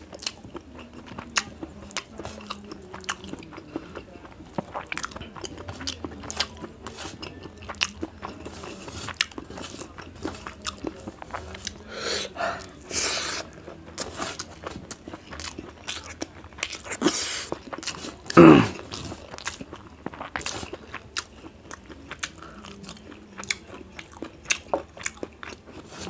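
Close-miked mouth sounds of a person eating rice by hand: chewing, crunching and lip smacks, with frequent small clicks. A few louder breathy noises come about halfway through, and the loudest sound, a short falling vocal noise, comes about two-thirds through.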